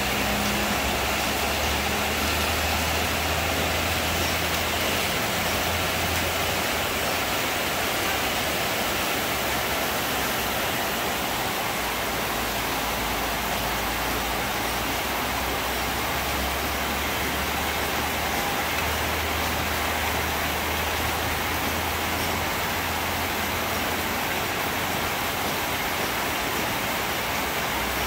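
Heavy rain pouring steadily, a dense even hiss of drops on leaves and corrugated metal roofing. A low rumble runs underneath for a few seconds near the start and again past the middle.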